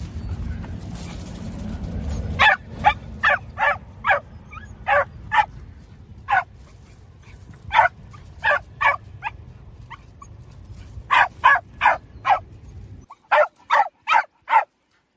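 Corgi barking at yaks: about twenty short, sharp barks in quick bursts of three to five, starting a couple of seconds in.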